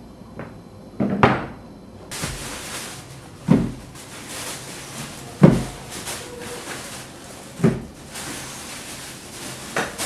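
Dull knocks and thuds of objects being handled and set down in a small room, five of them about two seconds apart. A steady hiss sets in about two seconds in.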